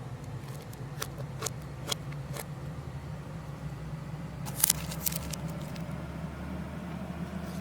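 Light, sharp clicks and taps of small objects being handled: four single clicks spaced about half a second apart, then a quick cluster of louder ones near the middle, over a steady low hum.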